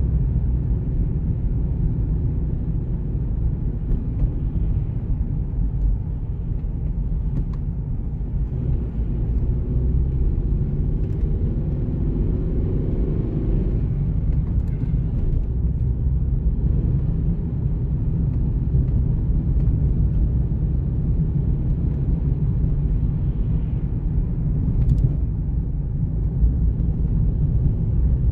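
Steady low rumble of a car's road and engine noise heard from inside the cabin, with tyres running on a wet road. A faint engine note rises and falls around the middle.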